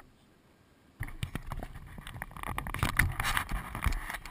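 Wind noise on a GoPro's microphone with scrapes and knocks of the camera being handled. It starts after about a second of silence and grows louder toward the end.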